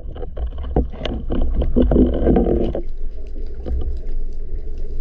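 Underwater water noise around a spearfisher's camera: a steady low rumble with crackling, bubbling noise and many small clicks and knocks of gear, busiest for the first three seconds and then settling to a quieter rumble.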